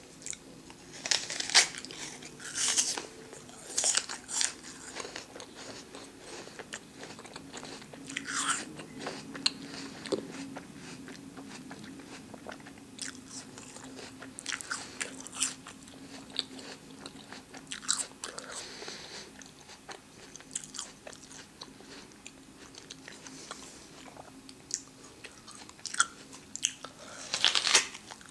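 Close-miked crunching and chewing of a crisp raw red apple: sharp wet crunches at irregular intervals, busiest in the first few seconds and again near the end.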